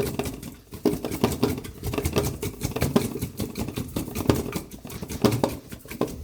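Parboiled potato wedges tumbling and knocking inside a covered container shaken by hand, a dense, irregular patter of soft knocks as they coat in an olive-oil and spice sauce.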